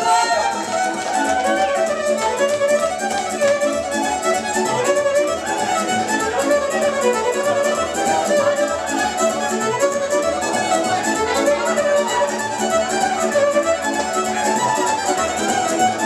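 Folk fiddler's violin playing a dance tune in quick melodic runs, over a steady low beat.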